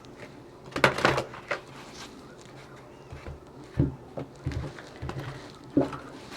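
A deck of tarot cards being shuffled and handled: short, irregular rustles and taps, the loudest about a second in.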